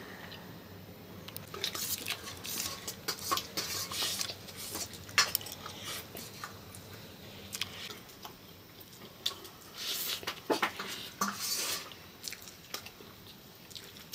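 Forks clicking and scraping against plates as noodles are eaten, in a run of short, irregular clinks, with some chewing between them.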